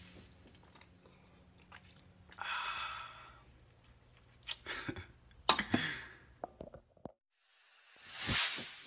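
A man's mouth sounds as he drinks juice: swallowing, breathing and a voiced sigh, over a faint low hum. Near the end comes a loud whoosh that swells and fades, a video transition effect.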